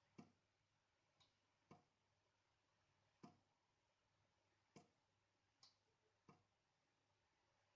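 Tap dripping water: single drops landing quietly, seven of them at uneven intervals of about one to one and a half seconds. Some drops give a brief, higher plink.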